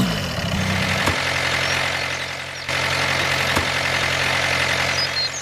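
Tractor engine idling with a steady chugging knock. Its pitch settles just after the start and it gets louder about halfway through.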